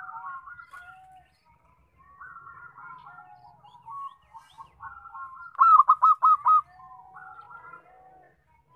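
Zebra dove cooing. Soft, warbling coo phrases run through, and about halfway in come a loud, rapid run of about five notes.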